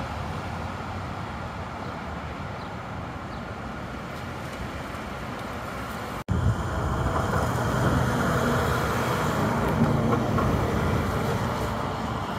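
Steady road-traffic noise of passing vehicles. About six seconds in, after an abrupt cut, it gets louder, with a low engine hum.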